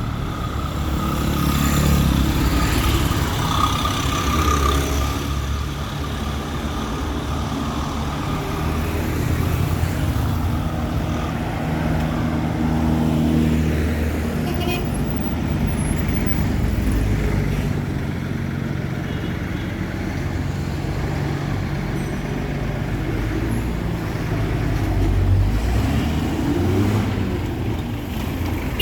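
Street traffic: motor vehicle engines running and passing, with the hum swelling and fading as they go by.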